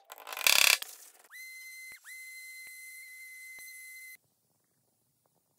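A mallet knocking on wood, then a random orbit sander's motor spinning up with a rising whine, holding a steady high whine that dips once and recovers, and cutting off suddenly.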